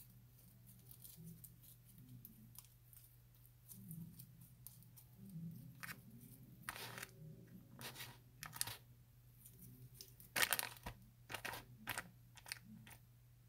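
Slime being pressed and squished: irregular soft crackles and clicks, loudest about ten and a half seconds in, over a steady low hum.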